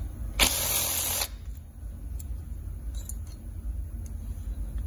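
A T27 Torx driver working the cylinder bolts of an Echo two-stroke engine: a short scraping rush about half a second in, lasting nearly a second, then a few light metal clicks.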